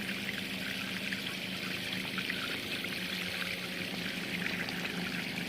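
Water pouring and running steadily over stones as they are washed, with a steady low hum underneath.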